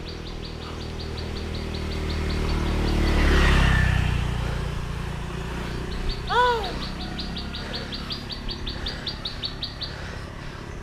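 A bird's rapid trill of short, evenly repeated high notes, heard twice. A motor vehicle, likely a motorbike, passes in between, its engine hum rising and fading with a peak about a third of the way in.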